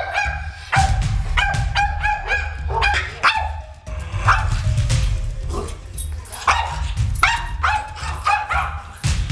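Terrier barking and yipping in quick, repeated sharp barks, the frantic barking of a fearful, reactive dog, over background music.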